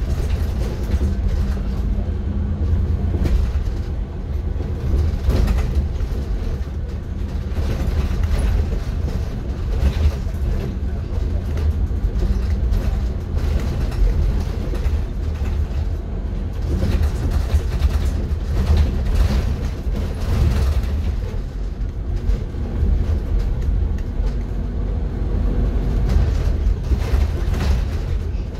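City bus driving, heard from inside the cabin: a steady low engine and road rumble with occasional rattles and knocks.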